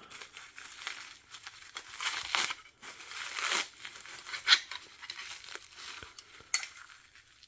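Packaging being unwrapped by hand: irregular crinkling and tearing, with a few sharper rustles about two, three and a half, four and a half and six and a half seconds in.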